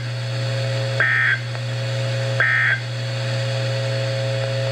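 Emergency Alert System end-of-message (EOM) code: two short bursts of high digital data tones about a second and a half apart, signalling that the alert has ended. A steady low hum runs underneath.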